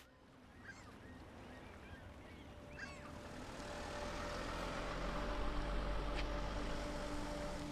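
A rushing outdoor noise swelling slowly louder, with a few short bird calls in the first three seconds and a steady low hum with held tones coming in about halfway.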